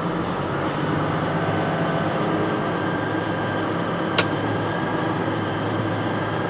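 A vehicle engine running steadily at low speed while driving slowly, with a steady hum of held low tones. A single short, sharp click about four seconds in.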